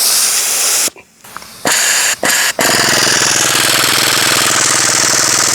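Aerosol can of penetrating oil spraying onto a rusted exhaust bolt: hissing sprays in short bursts, then one long spray of about four seconds.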